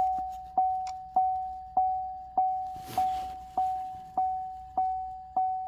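Chevrolet Silverado's electronic warning chime dinging in a steady repeating pattern, one pitched ding with a quick decay about every 0.6 s. A brief rustling hiss comes about three seconds in.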